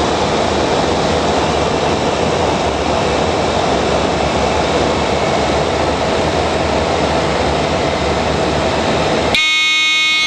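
Steady rushing cabin noise of a Cessna Caravan in flight: its turboprop engine and the airflow. Near the end it cuts off abruptly, and a loud, steady buzzing tone takes over for just under a second.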